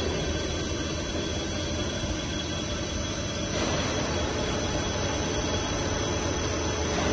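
Vertical CNC wheel lathe machining the face of an alloy wheel: a steady hiss of the tool cutting over the machine's low running hum, growing a little brighter about three and a half seconds in.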